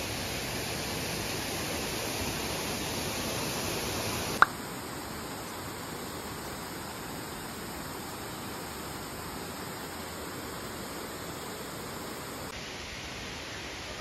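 Steady rushing of falling water from a waterfall, changing slightly in level at two edits. A single sharp click about four seconds in is the loudest moment.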